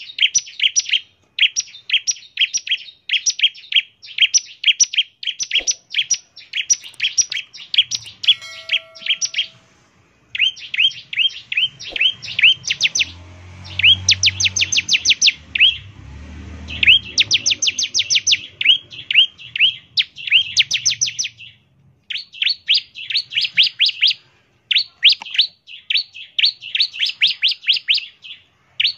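Bar-winged prinia (ciblek) singing its fast 'ngebren' song: rapid runs of short rising chirps, about eight to ten a second, in bursts of a second or two with short breaks between them. It is the song used as lure audio to set other ciblek singing.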